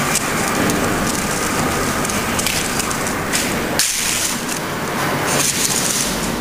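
Steady, loud industrial noise of precast-plant machinery, mixed with the gritty scrape of a rake being dragged through wet concrete spread over steel reinforcement.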